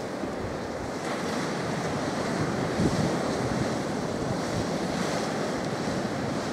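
Steady rushing wind outdoors, with gusts buffeting the microphone now and then.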